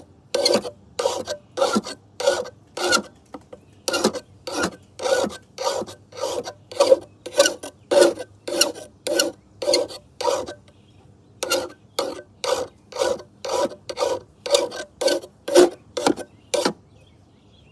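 Hand file rasping across the bevelled edge of a Homelite electric lawnmower's steel blade in repeated strokes, about two a second, with two brief pauses, stopping near the end: the dulled blade being sharpened.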